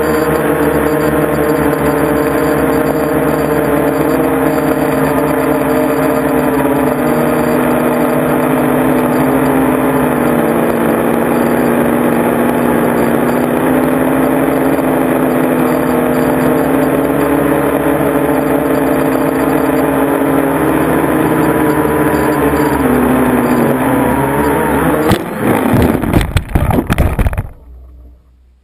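Quadcopter's electric motors and propellers whining steadily, heard from a camera on the frame, the pitch wavering a little with throttle. Near the end the drone comes down hard on gravel and tips over, with several loud, irregular knocks and clattering, and then the motors cut out suddenly.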